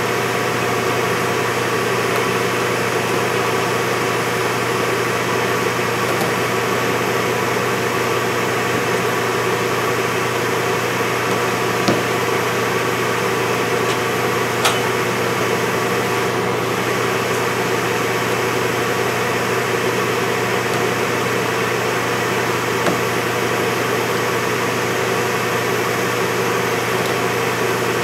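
Steady mechanical hum of shop machinery, with a couple of sharp clicks about twelve and fifteen seconds in as the plastic windshield-washer nozzles are popped out of the hood.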